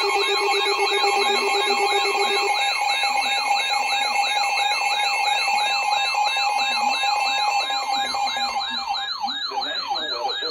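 Electronic emergency alert tones sounding together: a warbling, siren-like tone rising and falling about three times a second over steady beeping tones. A low buzzing tone underneath stops about two and a half seconds in.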